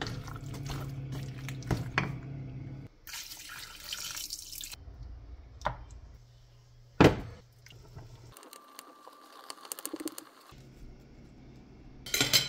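A wooden spoon stirring chicken and liquid in a non-stick pan: wet sloshing and scraping with scattered knocks, over a low steady hum. There is a sharp knock about seven seconds in and a clatter near the end.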